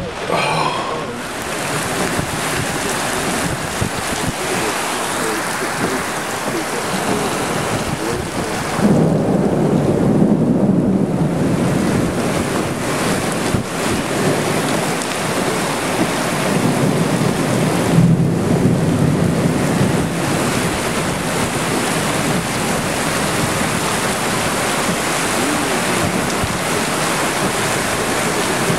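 Torrential thunderstorm rain pouring down, with wind buffeting the microphone. Low thunder rumbles swell about nine seconds in and again around eighteen seconds.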